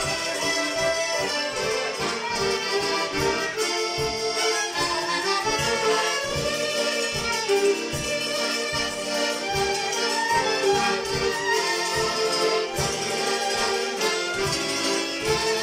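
Live Hutsul folk instrumental on fiddle, accordion and tsymbaly (hammered dulcimer), with the melody over a steady, evenly spaced beat.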